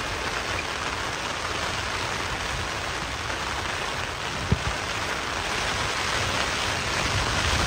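Steady rain falling on a tent's fabric, heard from inside the tent, with a single sharp click about four and a half seconds in.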